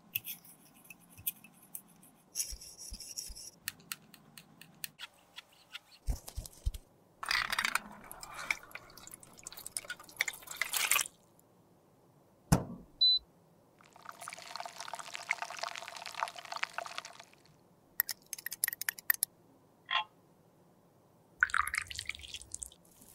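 Close-up handling of small plastic lipstick-tube parts: light clicks and scrapes, a sharp knock about halfway, and a steady hiss lasting about three seconds. Near the end, melted lipstick is poured from a small cup into a metal lipstick mould.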